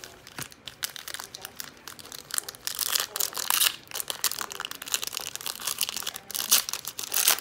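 Foil wrapper of a 2017 Absolute Football trading-card pack crinkling as it is handled and torn open, the crackle growing louder from about two and a half seconds in.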